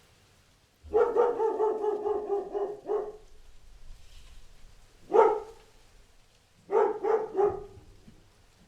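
Dog barking: a drawn-out, wavering bark lasting about two seconds about a second in, a single sharp bark around five seconds in, then a quick run of three or four barks.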